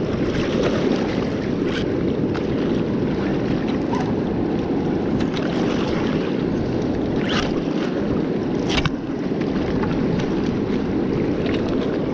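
Fast river water rushing over rapids below a low dam, a steady, even noise, with a few short clicks standing out, the sharpest about nine seconds in.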